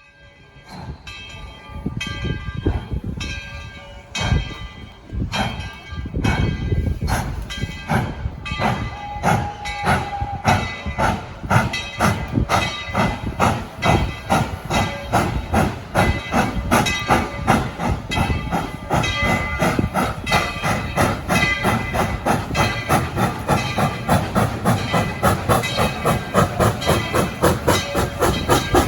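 Steam locomotive No. 12, a 4-6-0, working hard: exhaust beats start slow and quicken steadily to about three a second as it gathers speed, with steam hissing throughout.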